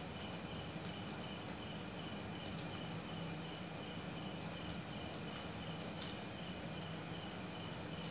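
Crickets chirping steadily in the background: a continuous high trill with a fainter note pulsing about three times a second. A couple of faint paper crinkles come about five and six seconds in as the folded banknote is handled.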